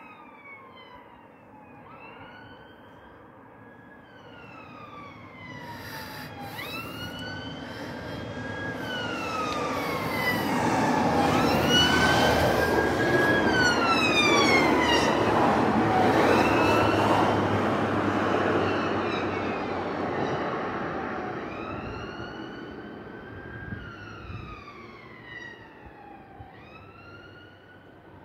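Police cars and a van passing with their sirens wailing. Several sirens overlap, each rising, holding and falling over a few seconds, with traffic rush under them. They grow louder to a peak about halfway through and fade as the vehicles drive away.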